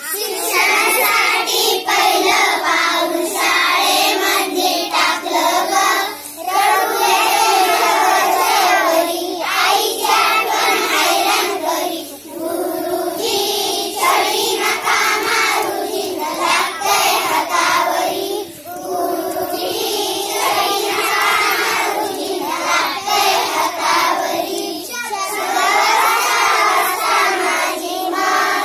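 A group of young children singing a Marathi action song together, in sung lines with short breaks about every six seconds.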